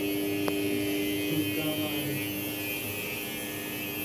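Steady electrical hum with a single short click about half a second in.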